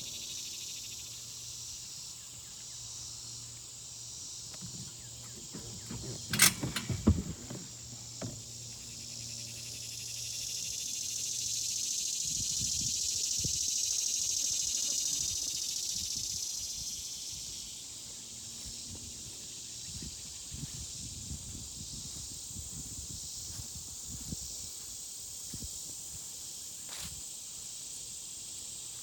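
Cicadas buzzing in a continuous high drone that swells and then fades back around the middle. A few sharp cracks about six to seven seconds in are the loudest sounds, with faint rustles and knocks later on.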